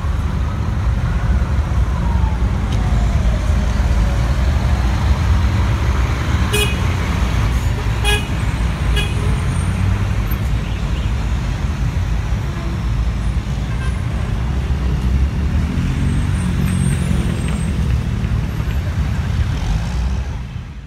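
Volvo B450R double-decker coach's diesel engine pulling away, with a steady low rumble over street traffic. A few short horn toots sound near the middle.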